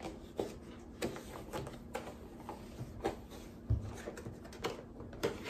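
Plastic shoe box lid being pressed and worked down over a full box: a scatter of light plastic clicks and knocks, with one duller thump a little past the middle.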